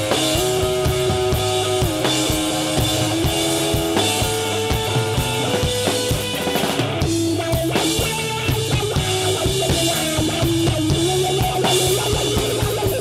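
Live rock and roll band playing an instrumental passage between verses, with the drum kit prominent, bass drum and snare, under steady chords that change every second or two.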